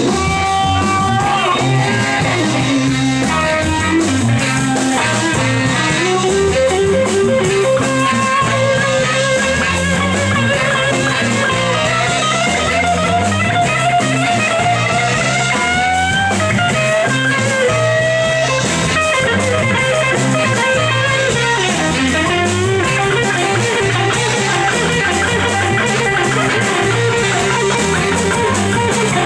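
Live band playing a blues-rock number: a guitar carrying bending melody lines over bass and drum kit, at a steady loud level.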